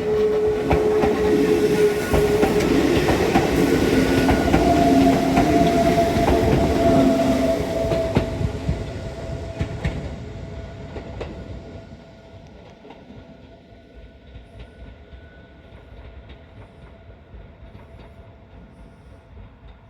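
Hakone Tozan Railway three-car train of Moha 1 and Moha 2 electric cars running past over a level crossing, wheels clattering, loudest for the first eight seconds and fading away by about twelve seconds in. A steady ringing tone, the level crossing's warning bell, keeps sounding as the train fades.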